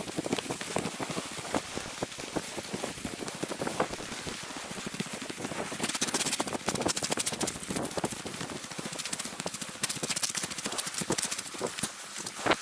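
Footsteps crunching and clattering over beach rocks and pebble shingle in quick succession, denser and sharper about halfway through and again near the end.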